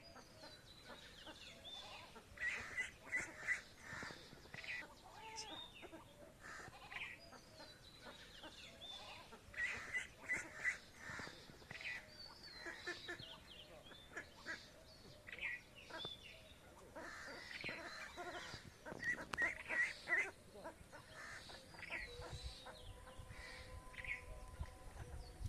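Domestic ducks quacking in quick runs of calls, with high, thin peeps from ducklings among them. A steady hum comes in near the end.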